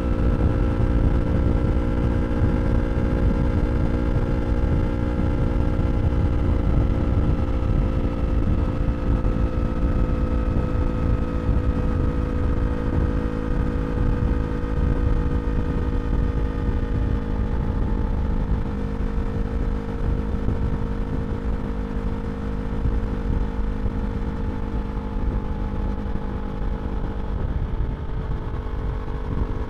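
2023 Yamaha R3 parallel-twin engine with an Akrapovič slip-on exhaust, running at a steady cruising pace. Its pitch eases slightly lower over the stretch, under a steady low rushing noise.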